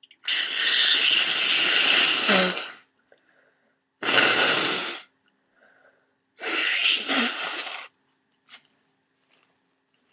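Three forceful bursts of air through a flu-congested nose: a long one of about two and a half seconds, then two shorter ones a few seconds apart.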